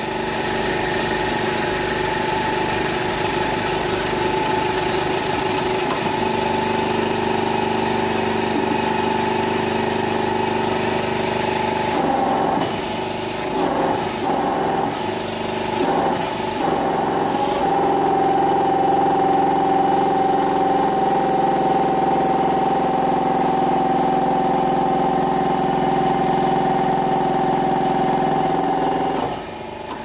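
Powered hydraulic press's pump motor running with a steady whine while the ram is driven down onto a bearing driver to press a tapered roller bearing into a steering hub. The sound breaks up for a few seconds around the middle, then runs steadily again until it stops just before the end.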